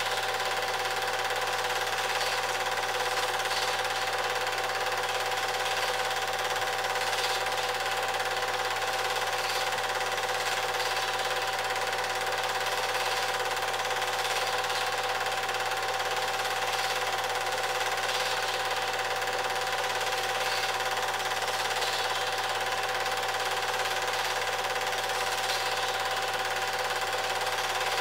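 Cine film projector running steadily: a continuous mechanical whirr with a steady whine.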